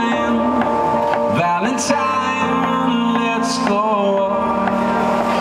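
A man singing over chords played on an electric keyboard in a piano sound, a live solo performance.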